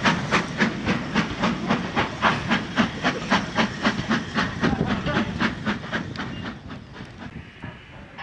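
Steam locomotive working a train away, its exhaust chuffing in even beats about four a second and fading as it draws off.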